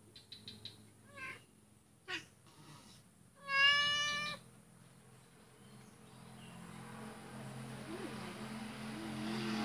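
Domestic cat meowing: a couple of short cries, then one loud, steady meow about three and a half seconds in, lasting about a second. Toward the end a vehicle's noise rises steadily.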